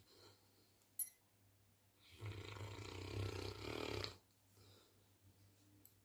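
Saint Bernard snoring: one long, deep snore begins about two seconds in and lasts about two seconds. A short click comes about a second in.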